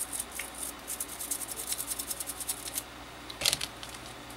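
Toothbrush bristles scrubbing rapidly over a cordless drill's trigger switch and control circuit board, about six quick strokes a second. The scrubbing stops a little under three seconds in, and a single louder knock follows.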